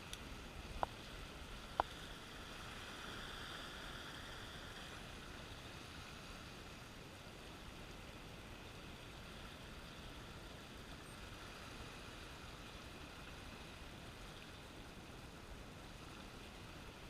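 Faint, steady wash of the sea around the rocks, swelling slightly a few seconds in. Two short clicks about a second apart near the start.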